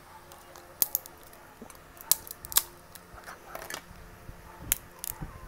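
Boiled shellfish shell being cracked and peeled apart by hand: a series of sharp snaps and crackles, about half a dozen loud cracks with smaller crackling between them.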